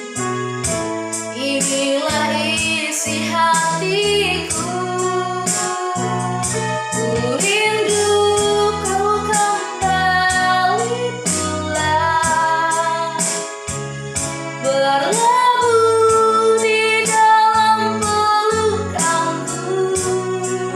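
Christian worship song: a woman singing the melody over keyboard chords with a steady beat.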